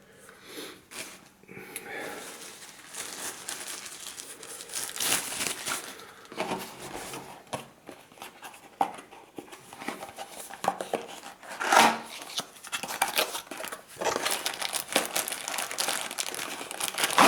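Packaging being handled and unwrapped: irregular crinkling and rustling with scattered crackles, louder bursts about five and twelve seconds in.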